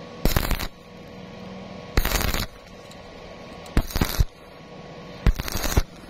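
Stick-welding arc from a 2.6 mm E6013 rod at 80 amps DCEP on thin square steel tube, struck in four short bursts of under half a second each, about one and a half seconds apart. The arc is broken off between bursts.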